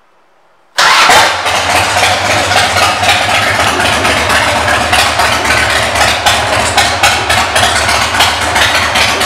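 Harley-Davidson Twin Cam 88 V-twin engine through aftermarket exhaust pipes. It comes in abruptly about a second in, then runs at a steady, pulsing idle.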